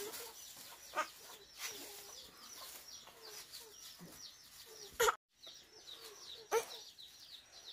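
Chickens clucking, with a steady run of quick, high peeps over lower clucks. A sharp click about five seconds in is followed by a brief gap in the sound.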